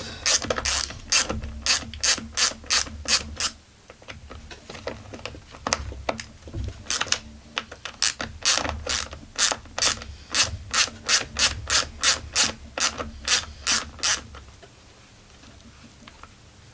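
Ratchet wrench clicking in two quick runs, about three clicks a second, as screws on a chainsaw's case are undone; it pauses for a few seconds in the middle and stops about fourteen seconds in.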